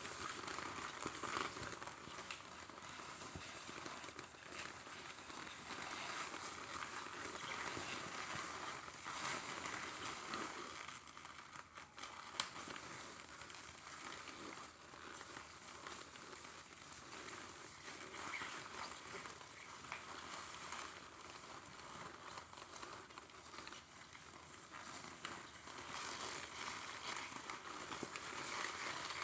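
Drip coffee maker brewing: a steady crackling hiss and sputter as the hot water heats and pushes through. One sharp click comes about twelve seconds in.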